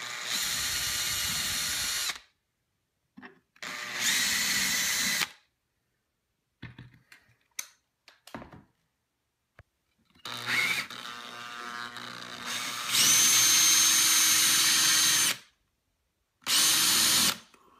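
Cordless drill boring holes through an iMac's aluminium stand, the motor whining steadily in separate runs. The runs come at the start, around four seconds in, in a longer stretch from about ten seconds in that gets louder partway through, and once more briefly near the end. Faint clicks of handling fall between them.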